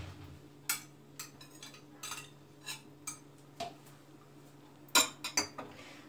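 Scattered light clinks and taps of a utensil against glass and dishware at the blender, with a louder cluster of knocks about five seconds in, over a faint steady hum.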